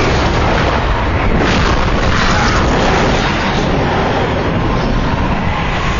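Film sound effect of a Confessor's power being released: a long, dense rumbling boom like a sustained explosion, with a hissing swell about two seconds in.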